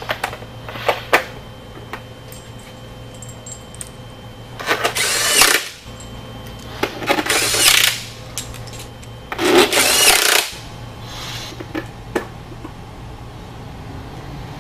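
Cordless drill-driver running in three short bursts of about a second each, its whine rising in pitch, driving in the bolts of an engine's upper timing belt cover. A few light clicks come before the first burst.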